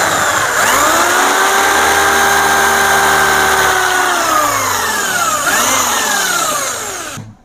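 Electric hand drill boring a hole through a metal amplifier front panel. The motor whine climbs to speed and holds steady, sinks in pitch, picks up briefly, sinks again and cuts off abruptly near the end.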